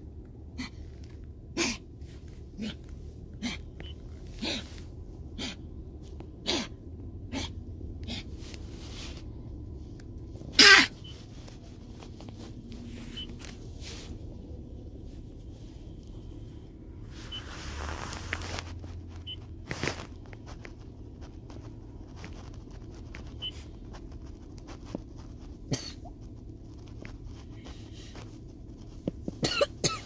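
A puppy's recurring cough: short, sharp coughs every few seconds, the loudest about ten seconds in, the kind the owner says comes on when he is lying down.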